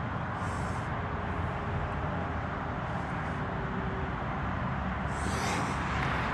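Steady road-traffic noise, growing a little louder near the end.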